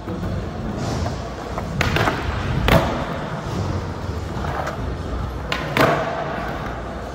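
Skateboard wheels rolling, broken by several sharp clacks and thuds of the board hitting the surface. The loudest comes about two and a half seconds in, and a quick pair follows at five and a half to six seconds.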